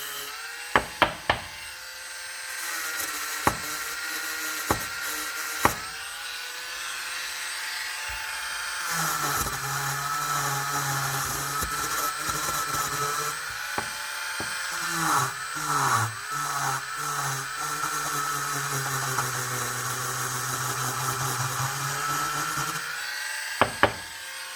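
Small power tool spinning a brass wire wheel, scrubbing brown deposits out of a carburetor float bowl: a steady whine whose pitch sags each time the wheel is pressed into the metal, with a few sharp taps in the first several seconds and near the end.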